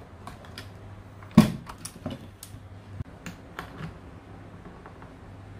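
A scatter of light clicks and taps from things being handled on a kitchen counter, with one louder knock about a second and a half in; the clicks die away after about four seconds.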